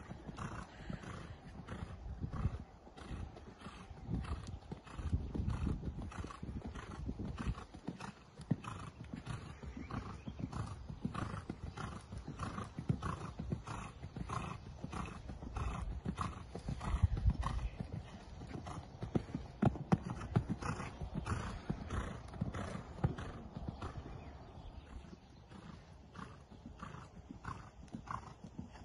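Six-year-old hunter horse cantering under saddle over fences in a sand arena: a regular beat of hoofbeats about one and a half strides a second.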